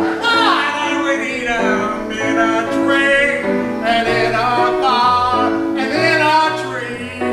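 Male voices singing a duet with piano accompaniment.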